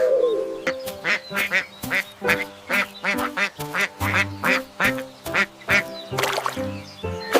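Ducks quacking in a rapid run, about four quacks a second, over background music.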